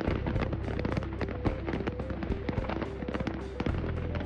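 Rapid, irregular crackling of firecrackers exploding in a burning fireworks warehouse, many sharp pops a second, with background music underneath.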